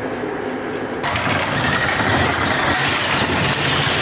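A motor vehicle engine running, with noise that gets suddenly fuller and louder about a second in.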